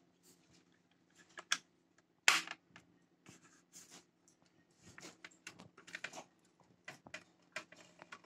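Irregular plastic clicks and knocks from handling a digital bathroom scale: its battery cover being pressed into place, then the scale being turned over and set down, with brief scuffs between. The sharpest click comes about two seconds in.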